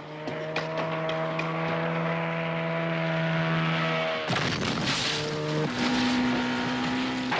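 Speedboat's outboard engine running flat out at a steady pitch, which sags slightly about four seconds in. Then a sudden loud rush of spray and churning water as the boat tears past close by, with the engine still running.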